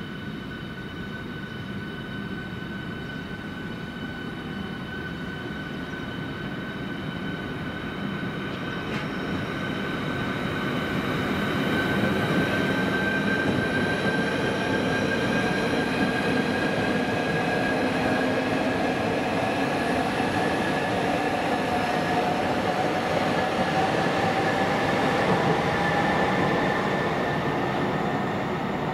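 Southeastern Class 395 high-speed electric train running along the line, with a steady whine over rumbling running noise. The whine rises slowly in pitch, and the sound grows louder about ten seconds in as the train draws near.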